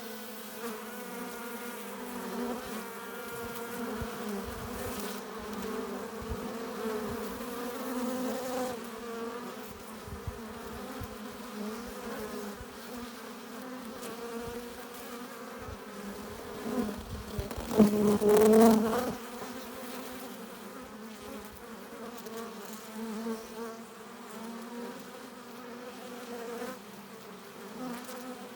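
Honeybees buzzing steadily in flight at the entrance of a hive, many wings humming together. A little past the middle the buzz swells much louder for about two seconds, then settles back.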